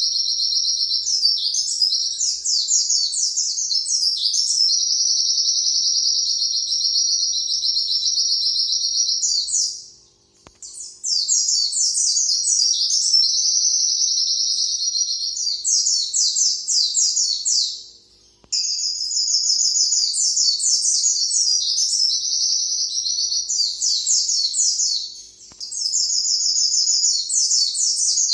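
Pleci (white-eye) singing its long 'nembak' song: a fast, high-pitched twittering run that goes on for many seconds without a pause. The song breaks off briefly about ten seconds in and again near eighteen seconds, with a short dip near twenty-five seconds.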